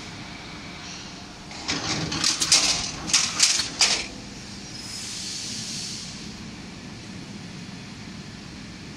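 Hardcover book case making machine running with a steady hum, broken about two seconds in by a quick series of loud scraping clatters lasting roughly two seconds, then a short hiss.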